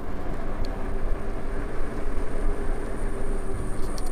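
Steady rumble of wind and road noise from riding an Ola S1 Pro electric scooter at speed, with a faint steady whine above it.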